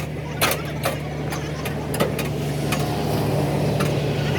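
An engine running steadily at a low idle, with about five sharp knocks scattered through it.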